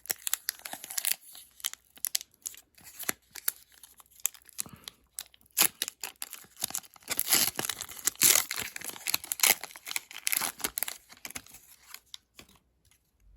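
A trading card pack wrapper being torn open and crinkled by hand, a run of crackling rustles that is busiest in the middle and dies away near the end.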